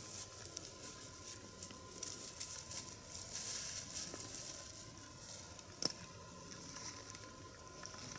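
Dry leaf litter crackling and rustling as a nine-banded armadillo roots through it, with a single sharp click just before six seconds in.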